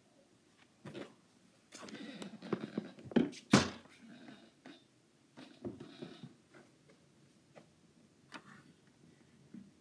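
Irregular rustling and light knocks from a phone being handled and moved while filming. The loudest is a sharp knock about three and a half seconds in.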